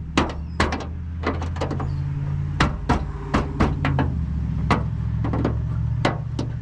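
Hard plastic running light housing clicking and knocking as it is handled and pushed into its opening in the car body: a quick, irregular run of sharp clicks, over a steady low hum.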